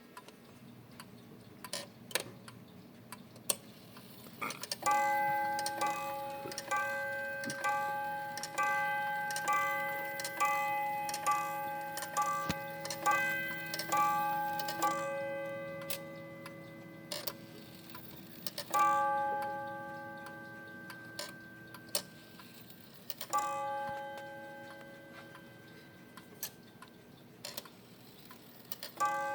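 1910 Gustav Becker weight-driven Vienna wall clock striking on its single hammer. A run of about a dozen ringing blows comes roughly one a second, then single strikes follow several seconds apart. The pendulum escapement ticks throughout.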